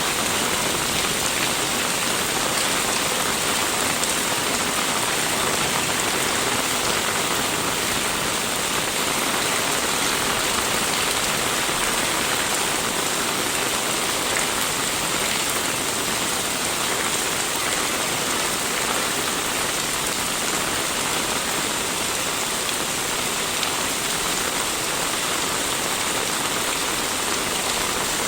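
Steady rain falling on the street and roofs, an even hiss that holds level throughout.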